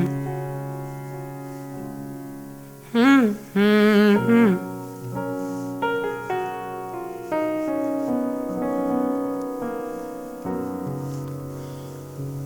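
Piano chords playing the closing bars of a stripped-down song, with a short sung phrase about three seconds in, then slow, soft chord changes.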